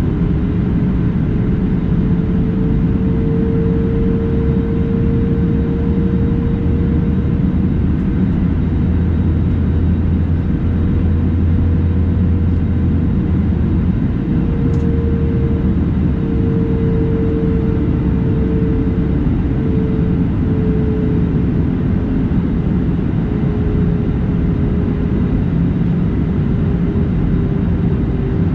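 Airbus A320neo cabin noise in flight: a steady low rumble of engines and airflow, with a steady mid-pitched hum that wavers slightly in pitch.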